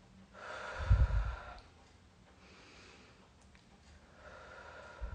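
A woman taking slow, deep breaths close to the microphone: a loud breath about a second in that puffs air onto the microphone, then a quieter breath near the end.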